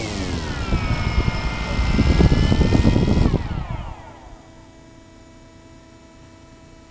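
Small camera drone's propeller motors whining with the aircraft on the grass after landing, then spinning down with a falling pitch and stopping about three and a half seconds in. Afterwards only a faint steady electronic hum remains.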